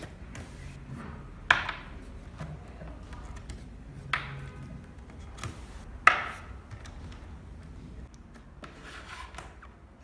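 White plastic plugs being pulled out of the push-fit water ports of a reverse osmosis purifier: three sharp clicks a few seconds apart, the last the loudest, with quieter handling and rubbing of plastic between.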